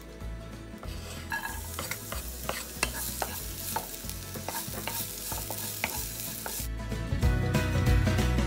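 Minced garlic sizzling in hot olive oil in a nonstick pan, starting about a second in, while a wooden spatula stirs it with scraping clicks against the pan. The sizzle stops near the end.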